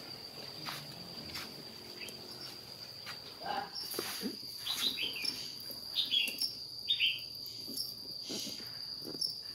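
Insects trilling steadily on one high note, with a handful of short falling chirps from a few seconds in, and scattered light knocks and rustling.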